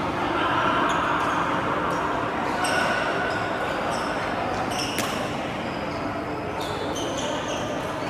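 Badminton rally in a hall: a sharp racket strike on the shuttlecock about five seconds in, with short squeaks over a steady background din of the hall.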